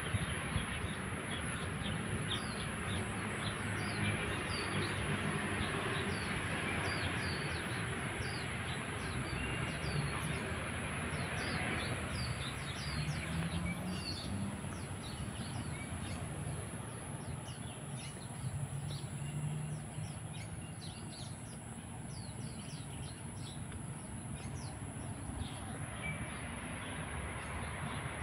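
Small birds chirping over and over in quick, short calls, over a steady rumble of street traffic.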